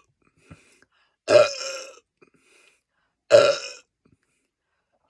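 A man belching loudly twice, each belch about half a second long, starting suddenly and trailing off, with another belch beginning right at the end. The belches come from gas after chugging a carbonated Coke.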